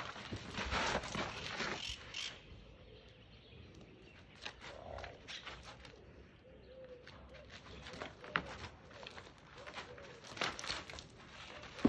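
White rhinoceroses shuffling and nosing over stony gravel: crunching and scraping, loudest in the first two seconds, then scattered clicks of stones. A few soft cooing calls come in the middle.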